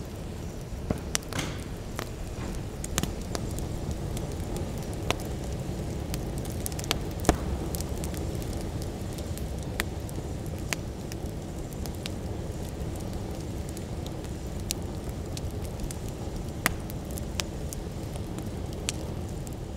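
Steady low background noise with scattered sharp crackles and clicks, fading out at the very end.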